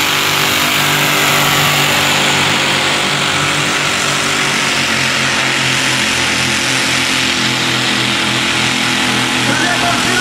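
Competition pulling tractor's engine running loud and steady, its pitch holding level throughout.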